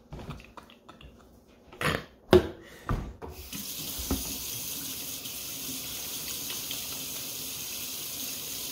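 A few sharp knocks, the loudest about two seconds in, then from about three and a half seconds in a kitchen faucet runs steadily into a stainless steel sink.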